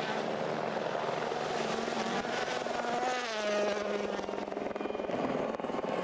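Rally car engine running hard at speed, its pitch falling sharply about three seconds in.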